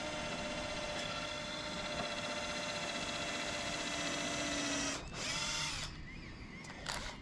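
A cordless drill/driver runs steadily, screwing a rubber rubbing strake to a boat's wooden rub rail. It stops about five seconds in, then runs in a short burst with its pitch bending, and briefly once more near the end.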